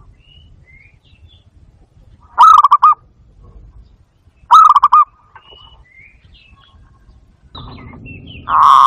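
Barred dove (zebra dove, bato-bato) cooing: two short bursts of quick stuttering notes about two seconds apart, with a third starting near the end. Faint high chirps of other small birds sound between the calls.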